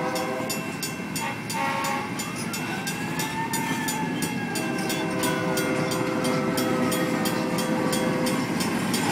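Train passing with its horn sounding twice, a short blast at the start and a long one from about halfway in, over a steady, even clatter from the rails.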